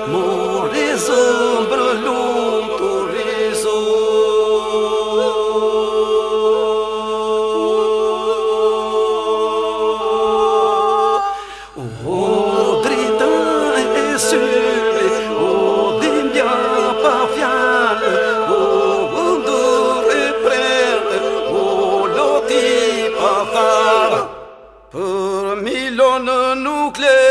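Unaccompanied Labërian polyphonic singing of a memorial song: several voices hold a steady drone while lead voices sing a wavering, ornamented melody. The singing breaks off briefly about twelve seconds in and again near the end.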